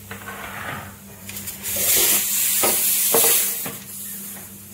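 Pressure cooker hissing as steam escapes past its weight valve for about two seconds, with a few light clicks; the cooker is still under pressure after cooking the pav bhaji vegetables.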